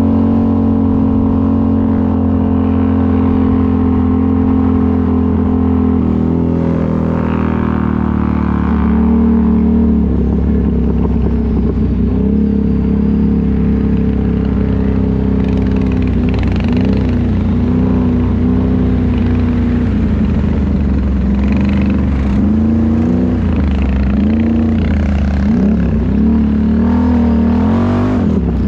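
ATV engine running loudly, steady at first, then revved up and down again and again in the second half.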